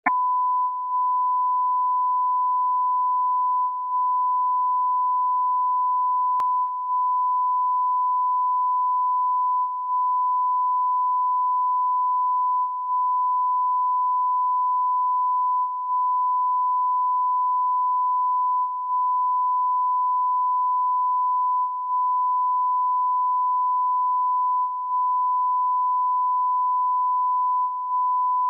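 Broadcast line-up tone: one steady, pure pitch at reference level over colour bars, used to set audio levels before the programme. It dips briefly about every three seconds, as a stereo ident does.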